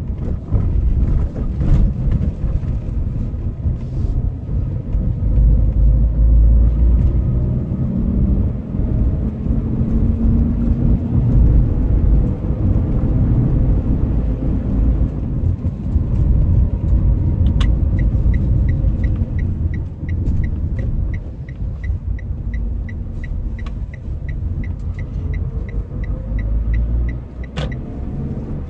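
Car engine and road rumble heard from inside the cabin while driving. About two-thirds of the way through, the turn-signal indicator starts ticking steadily, about three ticks a second, for roughly ten seconds, beginning and ending with a sharper click of the stalk.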